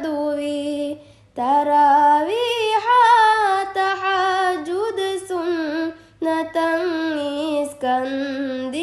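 A female voice singing a slow Ramadan nasheed in long held, wavering notes, with short breaks between phrases about a second in and again near six seconds.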